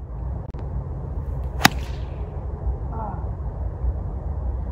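A single crisp click of a wedge's clubface striking a golf ball off the tee, about a second and a half in, over a steady low rumble of wind on the microphone.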